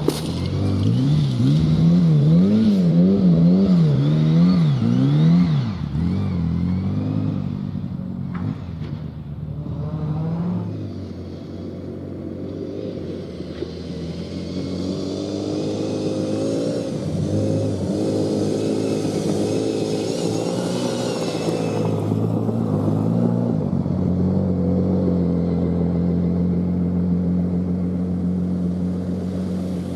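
Rally car engine revving, its pitch swinging up and down repeatedly for the first few seconds, then changing through the middle and holding a steadier note near the end.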